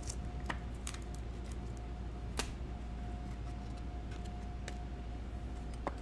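A few sharp, faint clicks of rigid plastic trading-card holders being handled, over a steady low hum.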